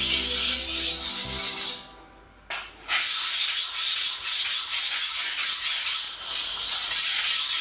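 Steel knife blade scraping back and forth on a 400-grit Naniwa Chosera water stone, a steady wet rasping, stopping briefly about two seconds in and then resuming.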